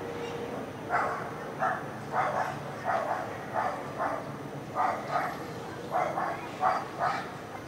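Repeated short barks, about a dozen, several coming in quick pairs, over a steady low background hum.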